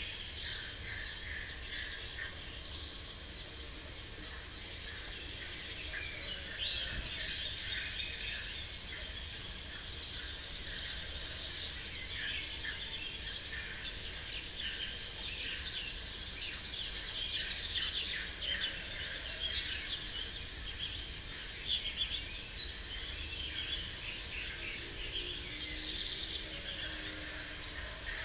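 Rural soundscape: many birds chirping busily over a steady, high insect drone like crickets, with a low rumble underneath. The chirping grows busier about halfway through.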